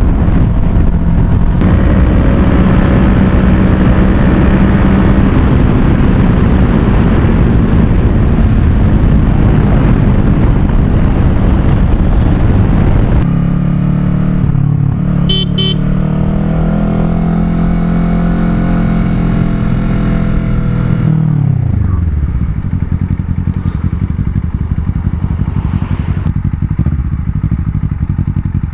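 Kawasaki Ninja 650 parallel-twin engine running at steady road speed under loud wind rush on the helmet-chin microphone. After about halfway the engine holds a steady cruise, then its pitch drops as the bike slows to a stop, and it settles to idle near the end.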